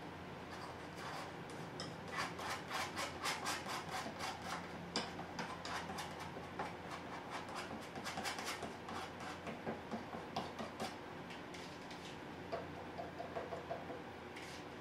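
Metal palette knife scraping thick acrylic paint across a canvas panel in a quick run of strokes. Near the end come lighter, sparser scrapes as the knife works paint on a plastic container lid.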